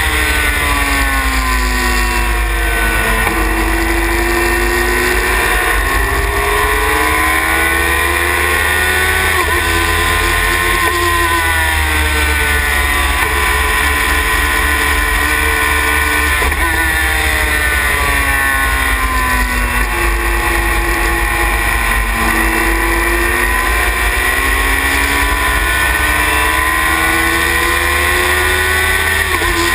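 Sylva Phoenix sports racing car's engine heard from the cockpit at racing speed: it climbs in pitch through the gears and drops sharply on gear changes and braking, over and over. A steady low rumble of wind on the microphone runs underneath.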